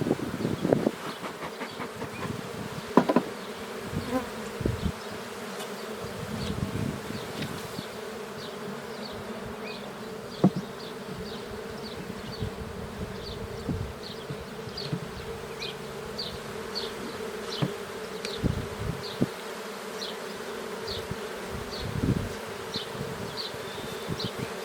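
Steady hum of honey bees buzzing around an opened hive, with sharp knocks of wooden frames and boxes being handled, mostly in the first few seconds and once more near the middle. A short high chirp repeats about twice a second in the background from a few seconds in.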